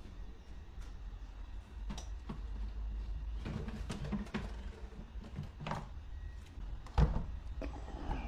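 Irregular knocks and clicks of pool filter parts being handled and fitted, with one louder knock about seven seconds in, over a steady low rumble.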